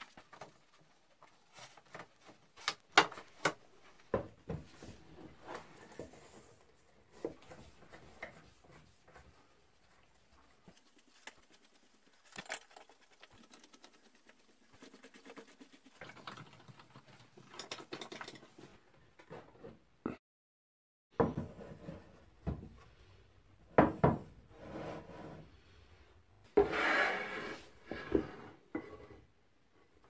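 Birch plywood strips being handled on a workbench: irregular wooden knocks, taps and rubbing as pieces are moved and set down, with a longer scraping rustle near the end.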